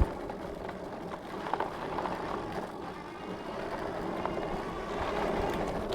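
Electric bike riding on a dirt trail: a steady motor hum mixed with tyre rumble and wind on the microphone.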